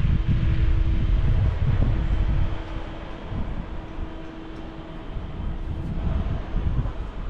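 Low, uneven rumble of outdoor noise, with a faint steady hum that breaks off and returns every second or so.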